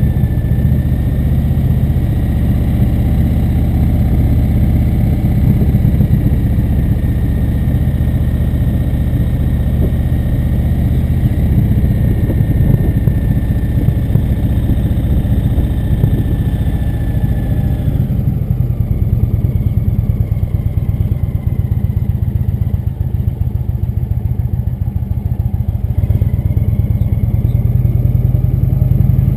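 Indian V-twin cruiser motorcycle engine running on the move at low speed. It eases off about eighteen seconds in and picks up again near the end.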